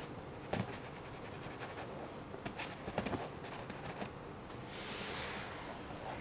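A kitten's claws tapping and scraping on a leather sofa as it paws up at a string toy: a few soft knocks, then a brief scraping rustle about five seconds in.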